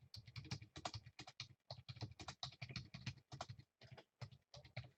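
Faint typing on a computer keyboard: quick runs of keystrokes, several a second, with a short pause about three and a half seconds in.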